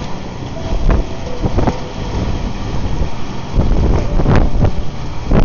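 Thunderstorm wind gusting with heavy rain. The gusts buffet the microphone in a loud, uneven low rumble, with a few short sharp cracks.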